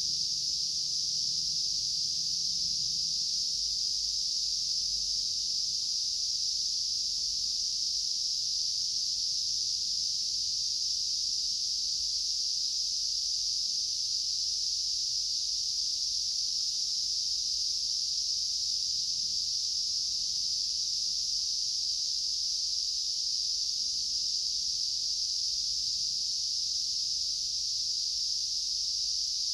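A continuous, even, high-pitched insect drone with no breaks or changes in pitch, typical of cicadas or bush crickets singing in a summer forest.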